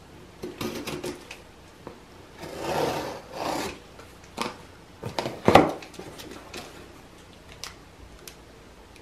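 Cardboard box being cut open and unpacked: two scraping strokes of a box cutter drawn through packing tape about three seconds in, then a sharp crackle of cardboard flaps about five and a half seconds in, with scattered clicks and rustles of cardboard handling.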